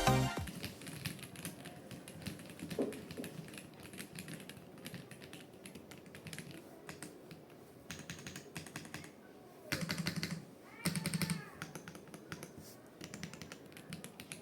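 Typing on a Royal Kludge RK M75 mechanical keyboard with silver linear switches: a quick run of light key clicks, with two louder flurries about ten and eleven seconds in.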